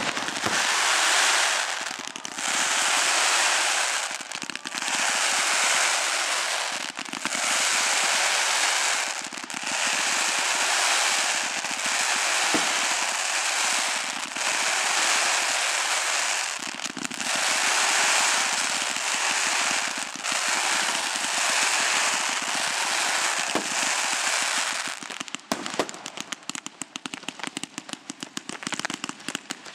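Fireworks crackling densely in repeated waves, one about every two to two and a half seconds. Near the end the crackling thins out to scattered single pops.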